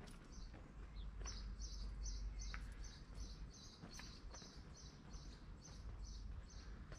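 A small bird chirping over and over, short high chirps about two or three a second, over a low steady rumble.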